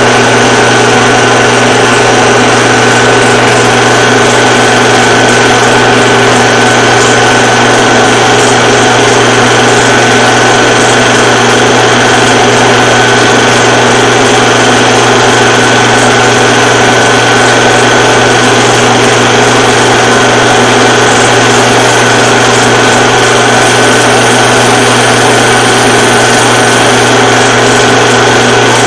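Film projector running with a steady, loud whir and hum.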